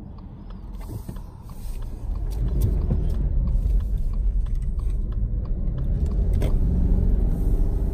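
Road noise inside a moving car: a steady low rumble of engine and tyres that grows louder about two seconds in.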